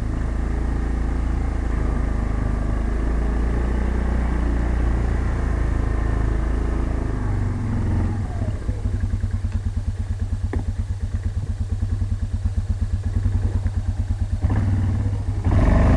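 A 2004 Yamaha Bruin 350 ATV's single-cylinder four-stroke engine running under way, then dropping in pitch about halfway through and settling to an even, pulsing idle. A brief louder surge comes near the end.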